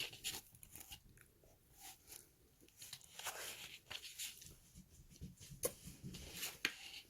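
Faint, close-up chewing and mouth sounds of a person eating birthday cake, coming in soft, uneven patches with a few sharp clicks.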